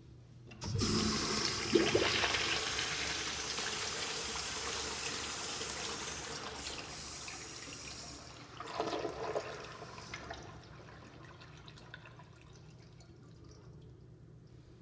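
Zurn urinal flushing: a sudden rush of water starts just under a second in and slowly dies away, with a second, shorter surge of water about nine seconds in before the flow fades out.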